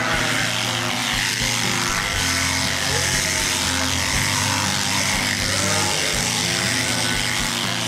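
Electric sheep-shearing machine buzzing steadily through the fleece, with music playing.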